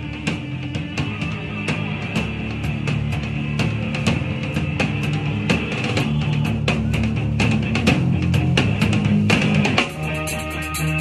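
Rock band playing with the drum kit up front: snare, bass drum and crashing cymbals over a bass line and guitar. A dense run of drum hits comes in the second half, with a short drop just before the end.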